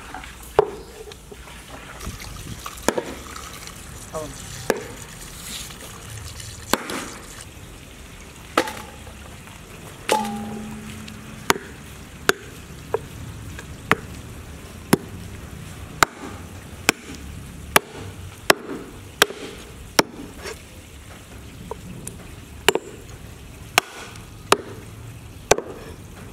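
Meat cleaver chopping raw meat and bone on a thick round wooden chopping block. It gives sharp single strikes, a few seconds apart at first, then about one a second.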